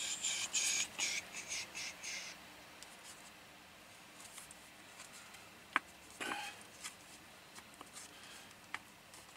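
Small handling noises from a folding pocket tool being worked open by hand: a run of scratchy rattling for the first couple of seconds, then a few separate sharp clicks.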